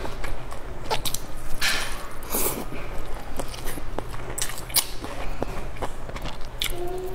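Close-up eating sounds: biting into and wetly chewing a large stuffed bun dipped in chili sauce, with many small mouth clicks and smacks.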